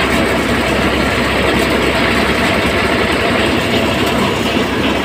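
Eicher 548 tractor running steadily under load, driving a 60 hp thresher that is threshing pigeon peas (arhar): a loud, unbroken mechanical noise with a constant low hum.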